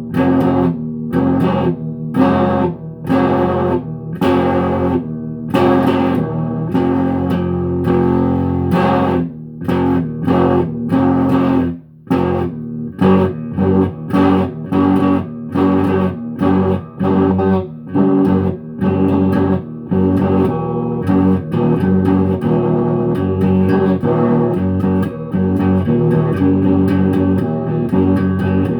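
Guitar being played: plucked notes following one another in a steady, repeating rhythm, with a brief break about twelve seconds in.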